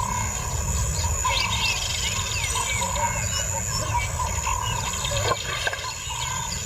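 Wild birds chirping and twittering in many short, quick calls over a steady low rumble.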